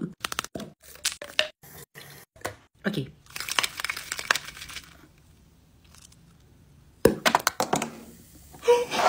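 Sharp cracks and crinkling from handled packaging, in a quick run of snaps and then a second cluster about seven seconds in, followed by a short cough near the end.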